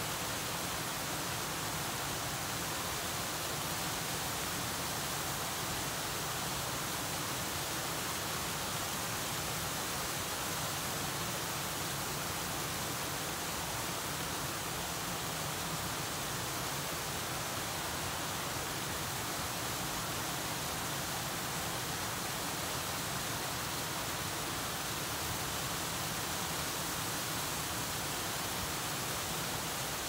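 Small waterfall on a stream: water pouring and splashing in a steady, even rush.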